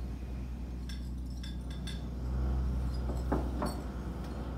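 Small plates clinking and knocking as they are lifted from and set back on a table, a few scattered light clinks with louder ones near the end, over a steady low hum.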